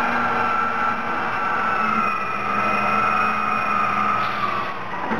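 Caterpillar 651B scraper's diesel engine running as the machine moves off, with a high whine that slowly falls in pitch and drops away near the end.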